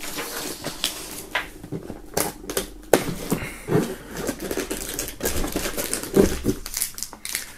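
Cardboard advent calendar door being pressed in and torn open, with an irregular run of crackles, taps and scrapes of thin cardboard.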